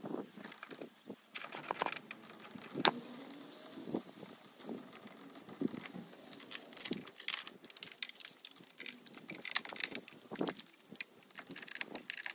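Irregular light clicks, taps and small rattles of hands fitting a tablet mount and its USB cable onto a motorcycle's handlebar area, with one sharper click about three seconds in.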